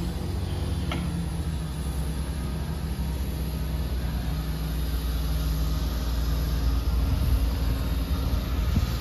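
Class 158 diesel multiple unit's underfloor diesel engines running with a steady low drone, growing a little louder near the end as the train pulls away from the platform.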